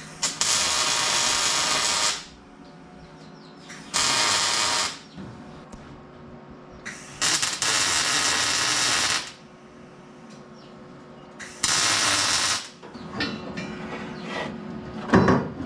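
A power tool or small machine run in four separate bursts of one to two seconds each, with a rattling, grinding noise.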